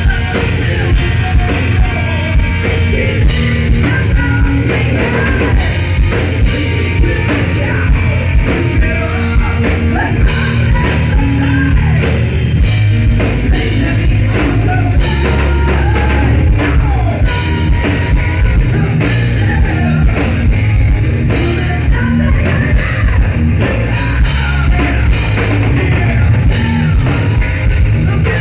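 Hard rock band playing live and loud: a singer with electric guitar, bass and drum kit.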